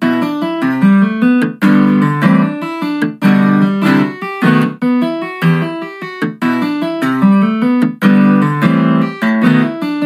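Fingerstyle acoustic guitar playing a melody over plucked bass notes, with percussive muted slaps on the strings between notes.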